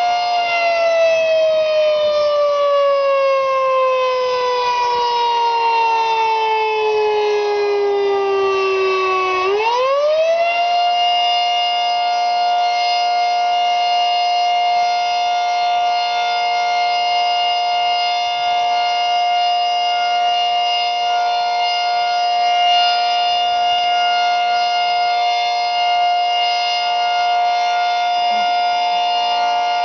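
Federal Signal 3T22 outdoor warning siren winding down slowly in pitch for about nine seconds, then quickly winding back up and holding a steady tone.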